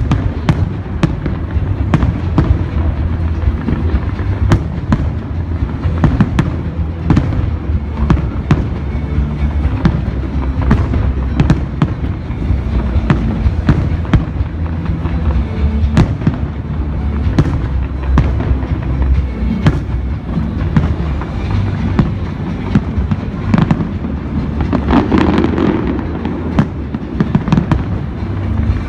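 Fireworks display: aerial shells bursting in quick, irregular succession, dozens of sharp bangs. Loud show music with a strong bass line plays underneath.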